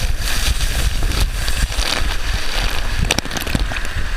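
Water rushing and air buffeting the microphone of a waterproof action camera during a fast ride down a water slide: a loud, steady rumble and hiss, with a few sharp knocks about three seconds in.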